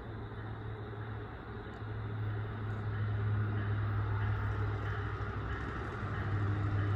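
A train approaching the platform: a low rumble with a steady low hum that grows louder about two seconds in.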